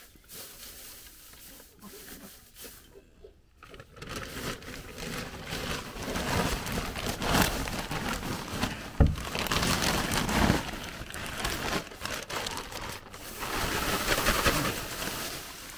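Plastic bag rustling and crinkling as loose straw is pulled out of it by hand, with one knock about nine seconds in.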